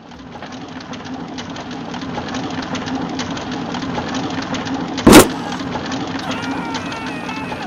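Mine cart loaded with coal rolling on rails: a steady rattling rumble that grows louder, with one loud bang about five seconds in. Near the end a wavering high-pitched sound joins it.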